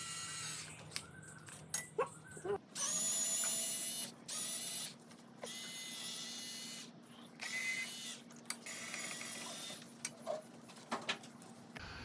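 A cordless power driver whirs in several short runs, each about a second long, as it backs out the cylinder head bolts of a Bajaj Pulsar engine. Metal clicks and knocks fall between the runs.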